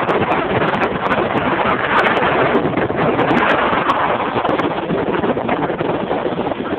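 Loud, steady rush of wind buffeting a phone's microphone, mixed with water noise, while riding at speed on the water behind a towing boat.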